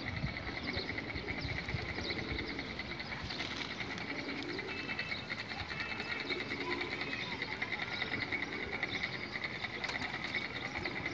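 Domestic pigeons cooing low, over a steady, fast-pulsing high buzz and scattered chirps of small birds.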